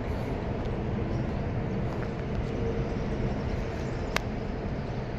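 Steady low outdoor rumble with a faint hum running through it, and one sharp click about four seconds in.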